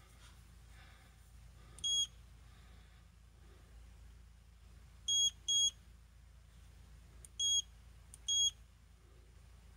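Shimano ForceMaster 800 electric reel's control panel beeping as its buttons are pressed: five short, high beeps, one about two seconds in, a quick pair near the middle, and two more near the end.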